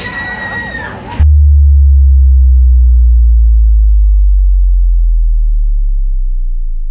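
A deep sub-bass boom, an edited-in title sound effect, hits suddenly about a second in, cutting off the background noise, then slowly sinks in pitch and fades over about five seconds.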